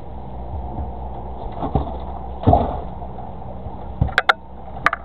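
Handling noises on a fishing boat: a few sharp knocks and clicks over a steady low hum. The loudest knock comes about halfway through, and a quick cluster of clicks comes near the end.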